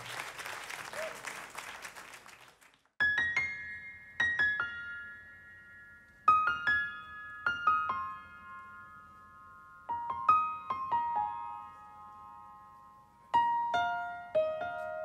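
Applause dies away over the first few seconds. Then a grand piano starts a slow, sparse melody: single notes and small chords struck every second or two, mostly high notes left ringing, stepping gradually downward in pitch.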